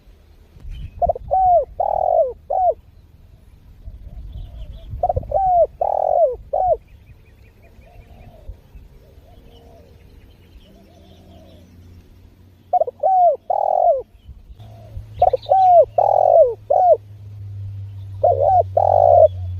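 Spotted dove (tekukur) cooing: five loud phrases of three or four coos each, with fainter coos in the gaps between them. A low steady hum comes in near the end.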